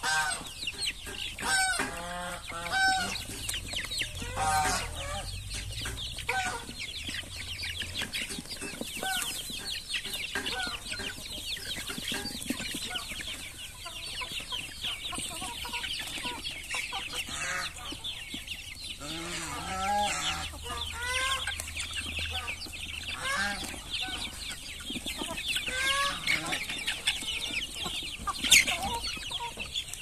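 A flock of young chickens clucking and peeping as they peck at feed, short calls overlapping and repeating all through. A single sharp click stands out near the end.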